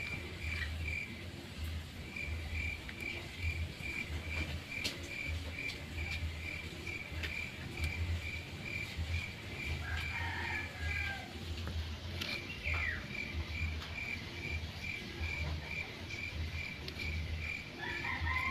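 Outdoor ambience: a high, even chirp repeating about three or four times a second, typical of an insect, pausing briefly near the start and for a few seconds in the middle, with a few short bird calls.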